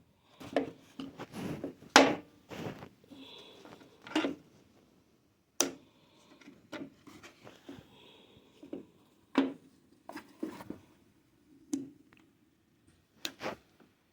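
Irregular clicks, knocks and rubbing of parts being handled as a cutting disc and its locking nut are fitted onto a small battery angle grinder, the loudest click about two seconds in.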